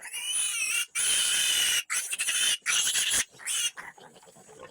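Piglets squealing: four long, shrill squeals with short gaps between them, dying down near the end.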